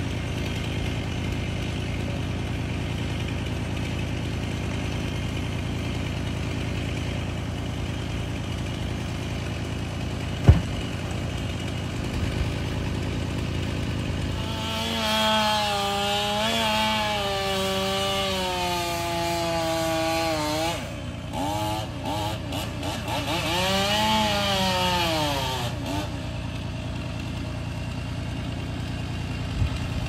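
An engine idles steadily, with a single sharp knock, then a chainsaw runs for about ten seconds from about halfway through, its pitch sagging and rising again and again as it is revved and cut with, before the idling engine is left alone again.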